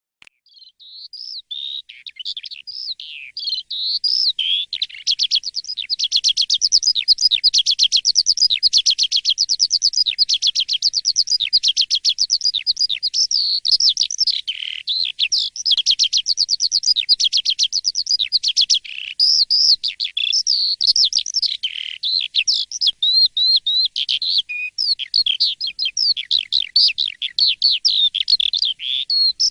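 Asian pied starling (jalak suren) singing without a break: fast chattering runs of rapid repeated high notes mixed with whistled glides. It starts faint and is loud from about four seconds in.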